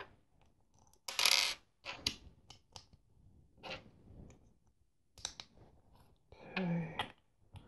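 Plastic LEGO bricks clicking and clattering as they are handled and pressed together, with a brief rustling scrape of loose pieces about a second in.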